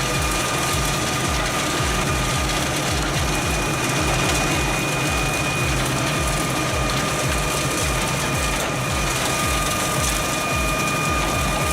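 Heavy diesel machinery running steadily: a constant high whine over a low, rhythmic throb of about four pulses a second.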